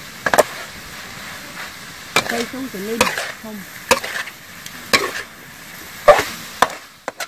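Metal spatula scraping and clanking against a wok as small shellfish are stir-fried, over a steady sizzle; a sharp clank comes every second or so.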